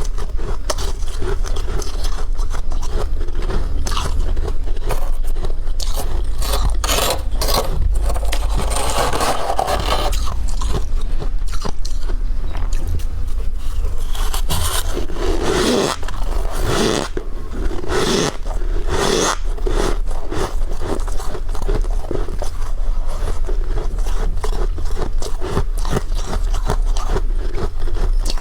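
Freezer frost being scraped and crunched close to the microphone: a dense, unbroken run of rough scratchy strokes over a steady low hum.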